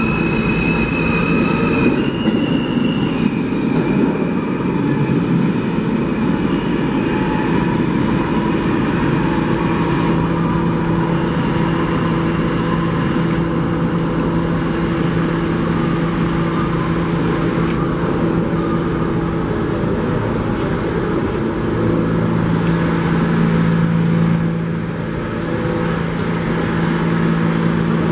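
New York City subway train in motion. Its electric motor whine changes pitch in steps over the first few seconds, then settles into the steady rumble and hum of the running train.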